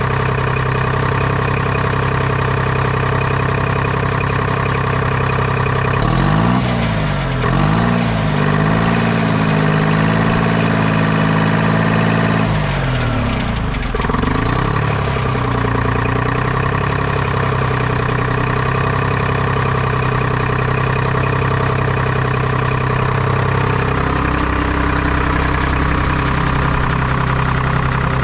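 Detroit Diesel 3-53T, a turbocharged three-cylinder two-stroke diesel, running on a test stand while warming up after a cold start. About six seconds in the engine speed rises and wavers for several seconds, then drops back to a steady idle.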